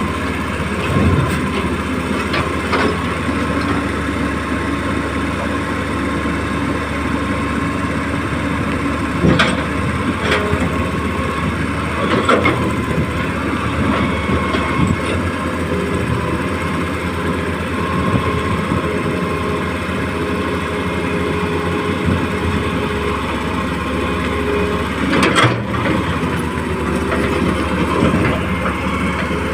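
Excavator running steadily while it loads fill soil, with a few short knocks or clanks of the machine at work.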